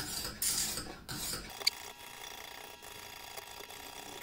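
Lansky sharpening system's medium hone stone drawn along a knife edge in two rasping strokes, followed by a single sharp click and then a faint steady hum.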